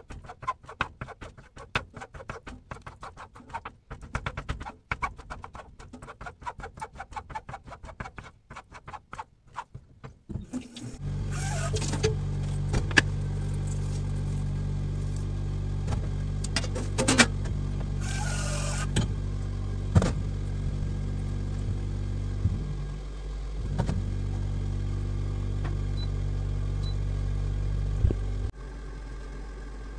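A spoon tearing konjac into pieces on a cutting board: quick, irregular small clicks. About ten seconds in, a steady low machine hum starts and runs on, louder than the clicks, with a few knocks and two brief hisses over it, and drops off shortly before the end.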